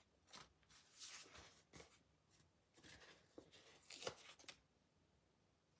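Near silence with faint rustling and a few light taps as paper and a clear acrylic stamp block are handled on the craft mat, dying away about four and a half seconds in.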